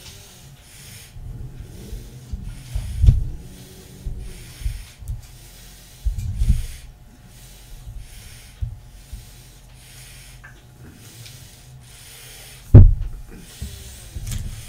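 Hot plastisol being stirred and worked in a glass measuring cup with a metal lure injector: low scraping and rubbing, with a knock about three seconds in and a louder sharp knock near the end.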